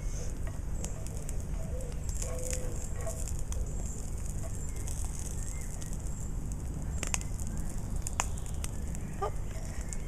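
Woodlice frying in a hot cast iron skillet over a small wood fire, popping like popcorn: scattered sharp pops and crackles, with a few louder pops in the last few seconds.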